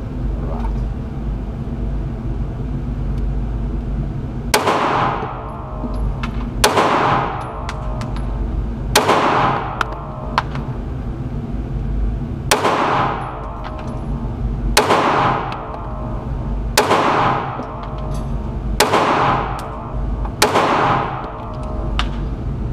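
Taurus PT111 Millennium G2 9mm pistol fired eight times in slow, deliberate succession, about two seconds between shots, starting about four and a half seconds in. Each shot rings out with a long echoing tail, over a steady low rumble.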